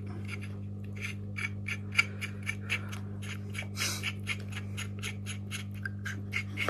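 An H4 LED headlight bulb clicking as its metal and plastic parts are twisted in the hands: a run of small, irregular, ratchet-like clicks, about three or four a second, with a short rustle about four seconds in.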